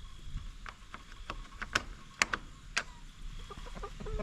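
A series of irregular sharp clicks and knocks, about six, the loudest around the middle, over a low rumble.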